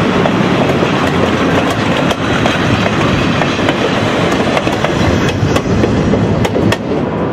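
Passenger coaches and a caboose rolling past close by at speed. Their steel wheels click over the rail joints through a steady, loud rumble of wheel and rail noise.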